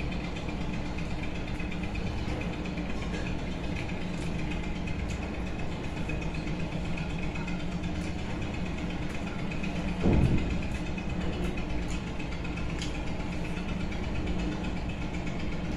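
A steady mechanical hum with a few constant tones runs under faint clicks of fingers mixing rice in a bowl. A brief, louder low sound comes about ten seconds in.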